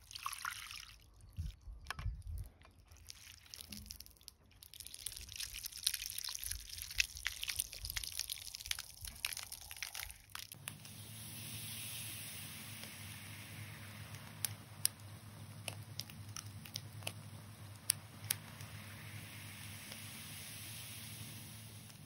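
Water beads poured into the cup of a hand-press juicer and squashed, with many small wet clicks and a few low thuds. About ten seconds in the sound changes to a steady hiss from a fire, with occasional sharp pops.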